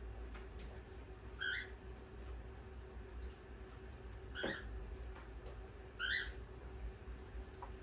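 Pet parrot giving three short, high chirping calls a couple of seconds apart, over a faint steady hum.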